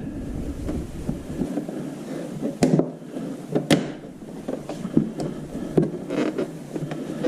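Scattered clicks and knocks of plastic scooter body panels and their clips and screws being handled and fitted, five or so sharp taps spread over a few seconds.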